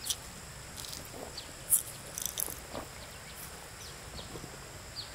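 Scattered light scuffs and clicks, the loudest a sharp click a little under two seconds in, over a faint steady high-pitched hum.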